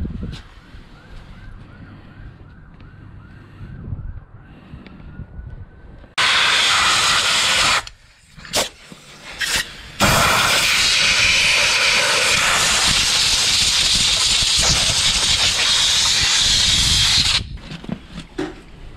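Compressed-air blow gun blasting at a motorcycle's front brake disc: a short blast about six seconds in, two brief puffs, then one long, loud, steady hiss of about seven seconds that cuts off sharply.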